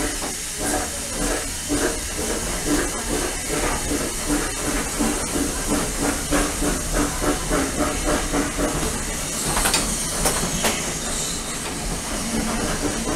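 Steam locomotive working a train at low speed, with a steady hiss of steam and regular chuffs, and a few sharper clanks about ten seconds in.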